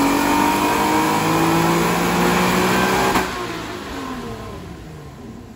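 Tuned Infiniti Q50 Sport V6 accelerating hard, its exhaust note climbing steadily in pitch. A little after three seconds in there is a single sharp crack, then the revs fall and the sound fades away.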